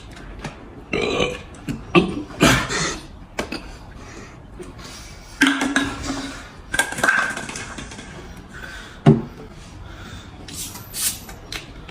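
A person burping several times in short separate bursts, one of them a drawn-out burp with a steady low pitch. The burps come up from gulped carbonated cola.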